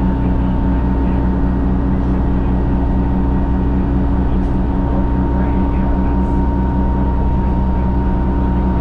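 The 1980 GM New Look bus's Detroit Diesel 6V71N two-stroke V6 diesel running steadily under way, heard from inside the passenger cabin, with a steady high whine above the drone.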